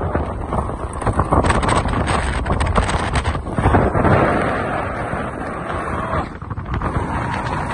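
Strong gusting wind buffeting the microphone, the air blast from a glacier avalanche sweeping over the lakeshore.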